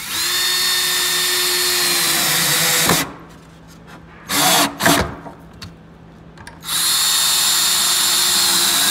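Ryobi cordless drill driving 2.5-inch screws into western red cedar, in two runs. The first lasts about three seconds from the start and the second begins about seven seconds in. Each is a steady whine that drops slightly in pitch toward its end, with a couple of knocks in the pause between them.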